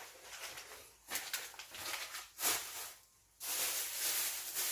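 Rustling handling noise in irregular bursts, with a short lull about three seconds in, then a denser, steadier rustle.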